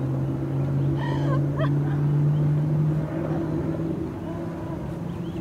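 A steady low motor hum that rises slightly in pitch and eases off about three seconds in. A few short high chirps come about a second in.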